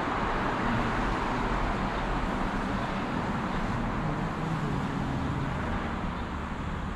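Steady hum of road traffic from the streets below.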